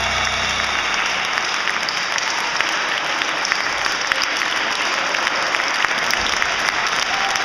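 Congregation clapping in a dense, steady round of applause as the music fades out in the first second.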